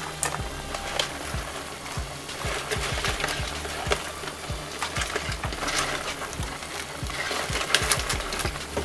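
Background music, with scattered clicks and light splashes as live crawfish drop into a pot of simmering crawfish-boil broth.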